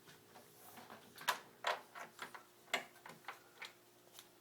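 Hard plastic refrigerator door trim parts clicking and knocking as they are handled and fitted into place: a string of sharp, irregular clicks starting about a second in, over a faint steady hum.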